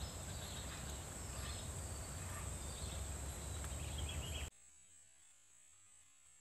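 Outdoor countryside ambience: a steady high insect drone over a low wind rumble, with a few faint bird chirps. It cuts off suddenly about four and a half seconds in to near silence.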